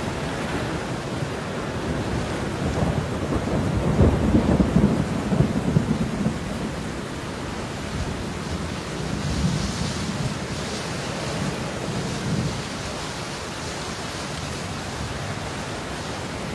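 Steady heavy rain with rolling thunder rumbling low underneath. The thunder swells loudest about three to six seconds in and rumbles again a few seconds later.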